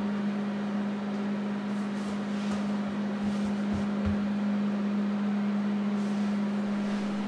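Panasonic microwave oven running mid-cycle, a steady hum with its fan noise underneath.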